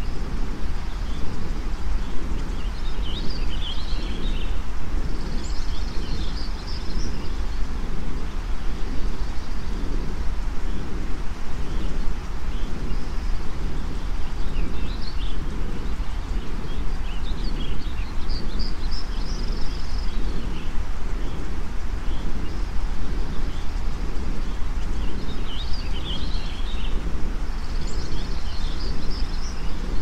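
Steady white noise with a deep rumble underneath, mixed with recorded garden birdsong: bursts of bird chirping come and go several times, a few seconds apart.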